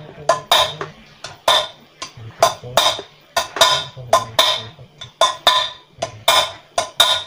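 Hammer striking steel again and again, about three blows a second, each with a short metallic ring, as a wheel bearing is driven into the hub of a Honda CBR150R's aluminium rear wheel.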